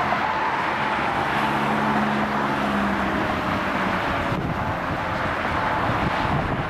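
Fire engine approaching on the road, its siren winding down in one slow falling tone, over engine and traffic noise.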